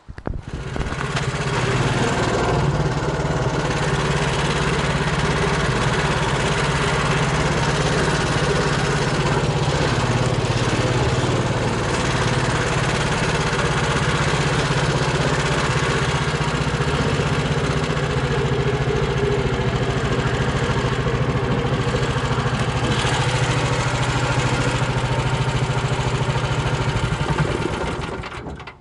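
Small engine of a homemade all-terrain vehicle on low-pressure tyres running steadily at an even speed, then cutting off abruptly near the end.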